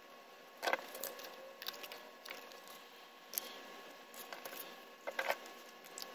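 Hands handling drafting tools on a cardboard board: a drawing compass, a paper strip and a marker. A few scattered light taps and clicks, the loudest about a second in.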